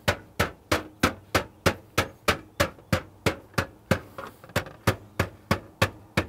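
Flat face of a ball peen hammer striking the edge of a thin copper sheet lying flat on a wooden workbench, bending the rim over. A steady run of sharp blows, about three a second.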